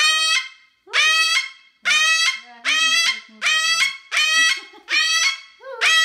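Moluccan cockatoo screaming: a loud, harsh call repeated about eight times, roughly one every three quarters of a second.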